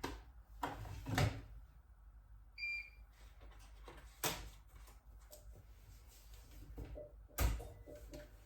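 A handful of sharp knocks and clicks, like a door or cupboard being handled, with the loudest knocks about a second in and near the end, and a brief high ring a little before the middle.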